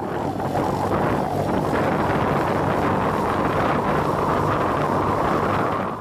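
Wind rushing and buffeting over the microphone of a moving motorcycle, steady throughout, with the bike's engine faintly underneath.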